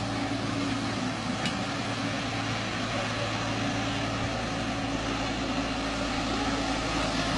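A heavy vehicle's engine running steadily, a constant hum under an even wash of noise.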